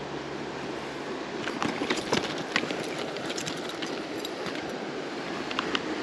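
Steady rush of a flowing creek, with a cluster of sharp clicks and taps about one and a half to two and a half seconds in and two more near the end, from handling a hooked trout and metal forceps in a landing net.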